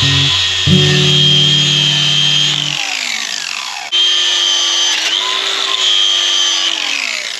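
Cordless angle grinder with an abrasive disc running against a steel fence post with a steady high whine. It winds down about three seconds in, starts again about a second later, and winds down once more near the end.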